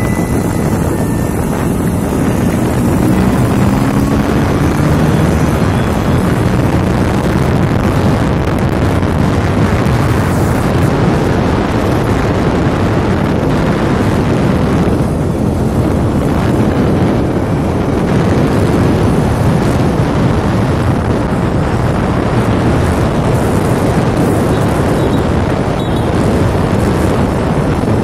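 Wind buffeting the microphone of a moving scooter, with the scooter's engine running underneath. A faint engine note rises in pitch a couple of seconds in.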